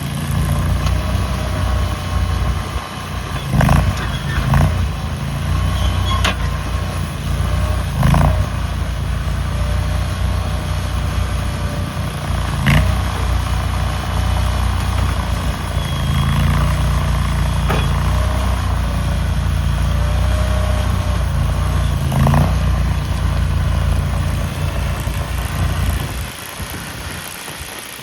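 Stand-on skid loader's engine running steadily while the machine is worked, with sharp knocks now and then.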